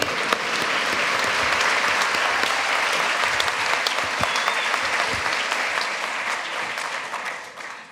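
Large audience applauding, dense clapping that dies away near the end.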